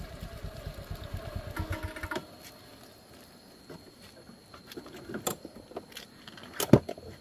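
Small motorcycle engine idling with an even low chugging, switched off about two seconds in. A few sharp knocks follow, the loudest near the end.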